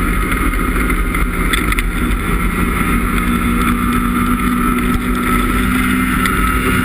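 2017 Ski-Doo MXZ X snowmobile's 850 E-TEC two-stroke twin engine running steadily while riding along a trail.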